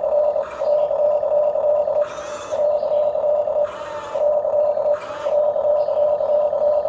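Huina 1550 RC excavator's electric motors running with a steady high whine, broken four times by short bursts of rattling noise as it works.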